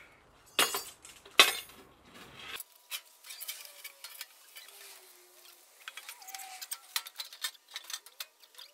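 Two hard metal clanks a little under a second apart near the start, then scattered light metallic clinks and taps, as a heavy 3/16-inch steel box is knocked and shifted into place on a truck's flatbed frame.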